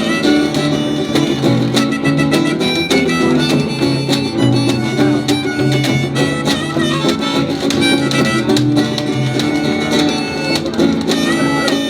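Live band playing an instrumental break between sung verses: guitar and bass over a steady beat, with a lead melody line on top.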